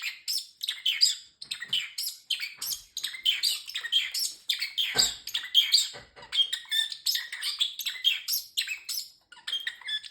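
Pet parrotlet chirping in a rapid, unbroken run of short high chirps, several a second.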